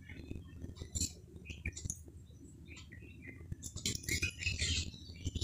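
Flour-coated eggplant slices shallow-frying in a little oil, crackling and spitting in scattered small clicks. About four seconds in, a spatula scrapes and clinks against the pan as a slice is turned, and the crackling gets busier.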